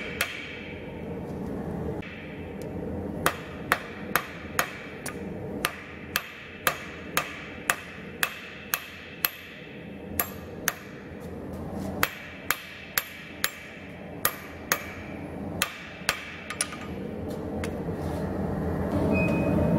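Hand hammer striking a red-hot steel knife blank on an anvil in sharp metallic blows, about two a second, in runs with short pauses between. The strikes stop near the end.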